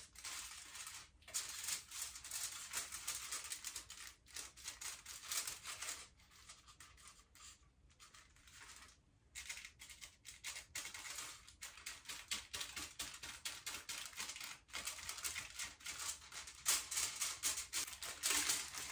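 Aluminium hair-highlighting foils crinkling and rustling as they are handled and folded against the head, in irregular crackly bursts that ease off for a few seconds midway.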